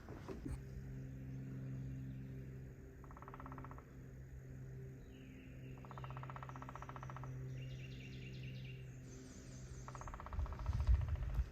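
Outdoor woodland sound: a steady low hum runs underneath, while a rapid trill sounds three times and birds chirp higher up. Near the end, louder rustling footsteps come in.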